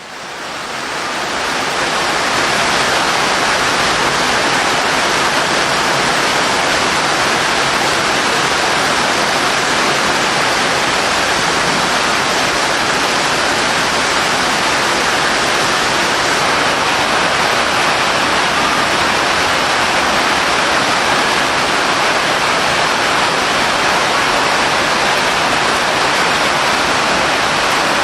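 Heavy rain as a steady, loud hiss, fading in over the first couple of seconds.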